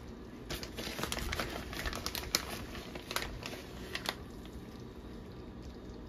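Irregular light clicks and crinkles as shredded cheese is added to a pot of creamy chicken and stirred in, busiest in the first four seconds, over a steady low hum.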